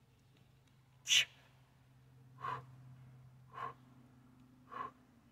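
A man's hard breathing under effort while pressing a heavy kettlebell overhead: four short, sharp exhales about a second apart, the first the loudest and hissiest. A faint steady low hum runs underneath.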